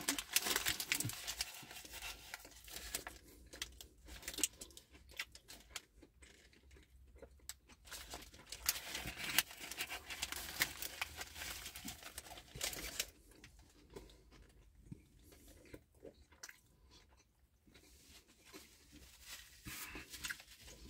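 Close-up chewing of a mouthful of pulled pork burger, mixed with crackly rustling of its paper wrapper. The sound is dense for the first dozen seconds, then goes quieter, with a little more rustling near the end.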